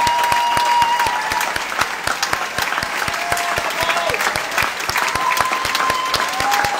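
Large audience applauding in a concert hall at the end of a choir piece, with a few long high held calls over the clapping, heard through a phone recording.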